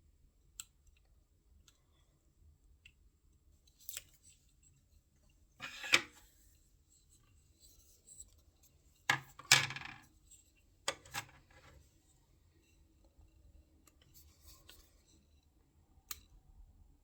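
Blind-box toy packaging being opened and handled: a few separate sharp crinkling, snipping bursts and light clicks, the loudest about six seconds in and again around nine to ten seconds in.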